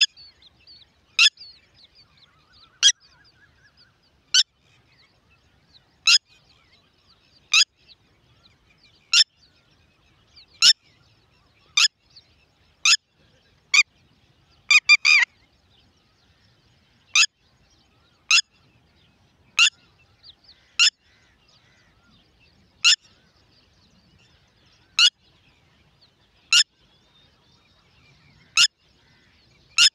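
Red-wattled lapwing giving short, sharp single calls every second or two, with a quick run of about four notes halfway through; faint chirping underneath.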